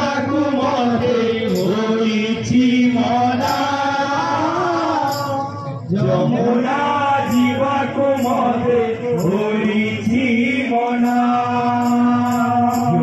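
Male voice chanting an Odia kirtan song through a microphone in long, held, wavering notes, with a barrel drum and short, sharp percussion strikes behind it; the singing breaks off briefly about halfway through.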